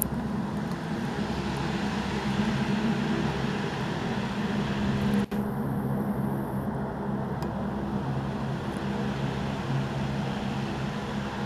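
Steady low engine hum with a hiss over it, dropping out for an instant about five seconds in.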